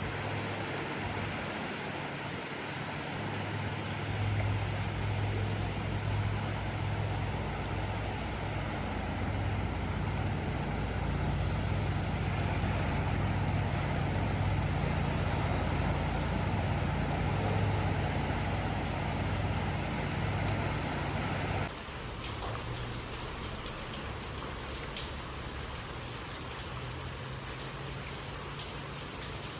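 Ocean surf, a steady wash of noise with a low rumble underneath, that cuts off abruptly about two-thirds of the way through to a quieter, hissing water ambience.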